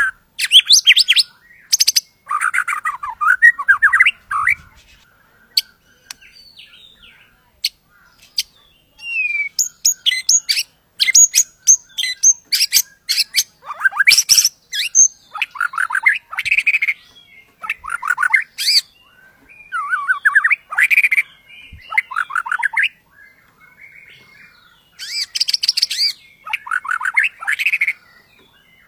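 White-rumped shama (murai batu) singing in full song: loud, rapid, varied phrases of sharp clicking notes and quick rolling whistled runs, in bursts broken by short pauses.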